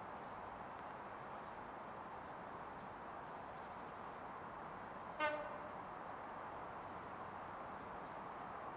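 One short horn toot, a single steady pitch lasting about half a second, a little after five seconds in, over a steady low background hiss.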